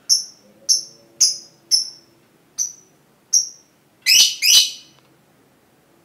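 Lovebird calls: six short, sharp, high chirps spaced half a second to a second apart, then two louder, longer shrill calls about four seconds in.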